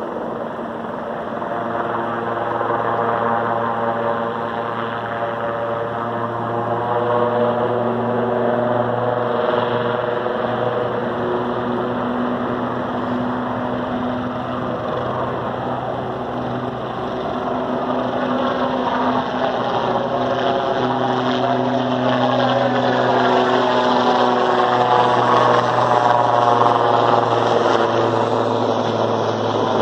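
Helicopter taking off and flying close by: a steady low engine and rotor drone with slowly sweeping tones over it, swelling louder in the second half.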